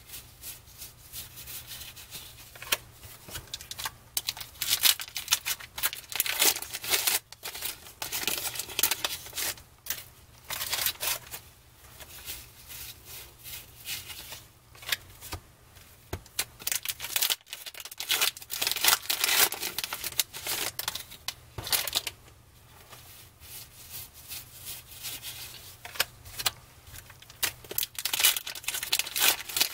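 Baseball trading cards being flicked and slid past one another in the hands: a continual run of short papery flicks and rubs, in clusters with brief pauses. Near the end, a pack wrapper crinkles as it is handled and opened.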